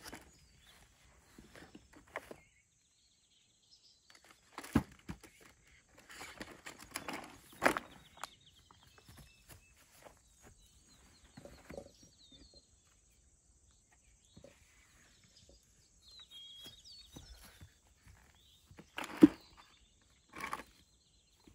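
Food packages and a plastic cooler being handled: scattered knocks as things are lifted out and set down, the sharpest about 5, 8 and 19 seconds in, between stretches of rustling packaging. Faint bird chirps in the background.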